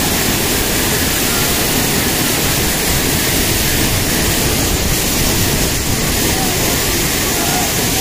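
Loud, steady rush of river water flowing over a concrete weir and down the rocky stream bed.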